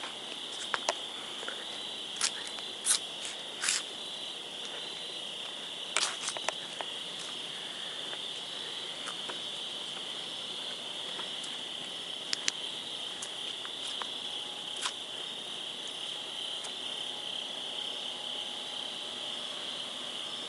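Steady night chorus of crickets, a continuous high-pitched chirring. Scattered sharp clicks sound over it: several in the first few seconds, a pair about six seconds in, and single ones later.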